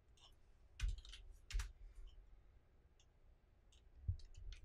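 Computer mouse and keyboard clicks: sharper clicks about a second in, at a second and a half and near the end, with lighter ticks between.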